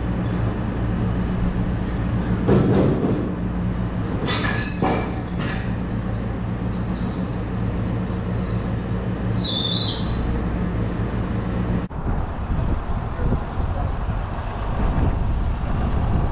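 An engine running steadily as a telehandler lifts a load of scaffold parts, with high, wavering metal squeals that step up and down for several seconds in the middle. About twelve seconds in, the sound changes abruptly to a rougher outdoor engine and vehicle noise.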